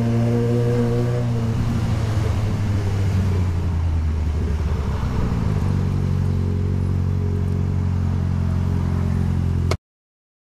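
Motorcycle engine running at low, even revs while filtering slowly through traffic; the note goes unsteady for a few seconds in the middle, with added road and wind noise. The sound cuts off abruptly near the end.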